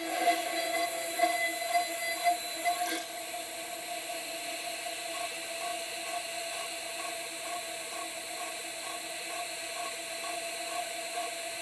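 CNC 6040 router spindle running with a whine of steady tones while its end mill cuts into an aluminium plate. The first three seconds carry sharp jumps in loudness from the cut. After that the sound drops a little and runs on steadily, with a faint regular pulse.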